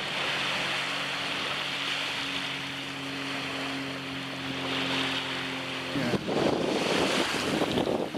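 Small waves washing on the shore under a steady engine drone. About six seconds in the drone cuts off and wind buffeting the microphone joins the surf.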